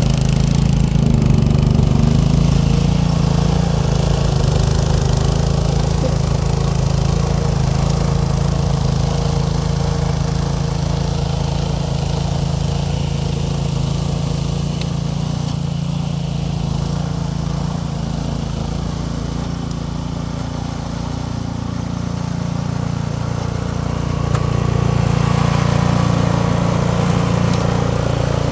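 Cub Cadet two-stage snow blower's engine running steadily. It eases off a little about two-thirds of the way through and picks up again near the end.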